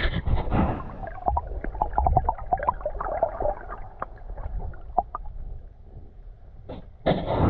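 Water gurgling and splashing in many short, irregular clicks, with a brief burst of rushing noise near the end.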